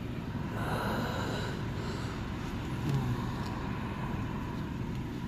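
Bus engine and road noise heard from inside the bus: a steady low rumble.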